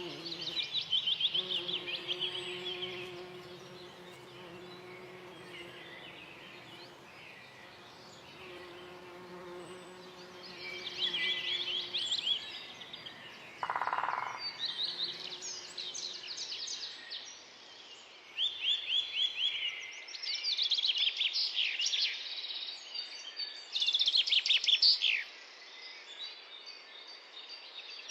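Songbirds singing in a forest, short phrases of rapid notes repeated every few seconds and getting louder and busier in the second half. A flying insect buzzes steadily through the first half.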